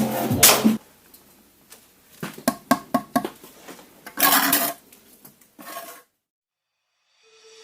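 Clattering knocks and metallic clinks of tools and building materials being handled during renovation work, loud at first and then a quicker run of lighter clinks; the sound cuts off suddenly near the end.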